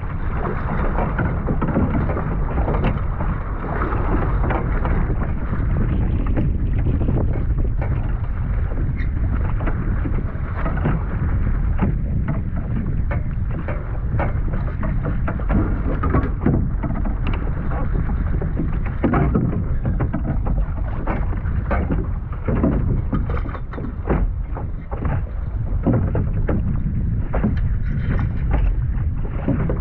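Wind rumbling on the microphone over water lapping against a Sunfish sailboat's hull, with frequent short knocks and splashes.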